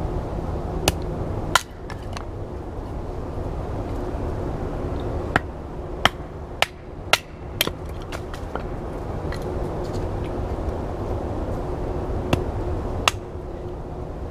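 Hatchet chopping into small logs to split kindling: sharp knocks of steel into wood at an uneven pace. Two come about a second in, about five follow close together around the middle, and two more come near the end.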